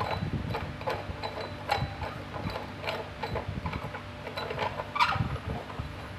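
Threaded metal plumbing-pipe fittings being screwed together by hand: irregular metallic clicks and scrapes as an elbow and pipe are turned on their threads, with a louder clank about five seconds in. A steady low hum runs underneath.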